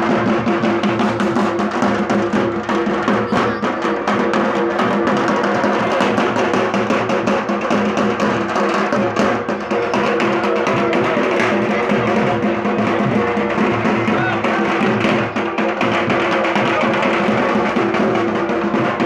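Large barrel drums played together at a fast, steady beat, with a steady ringing tone underneath.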